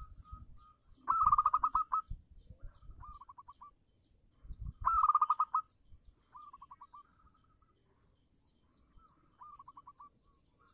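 Zebra dove (perkutut) singing its staccato cooing song: runs of quick, rapid-fire notes. Two loud phrases come about a second and about five seconds in, with softer phrases between them and near the end.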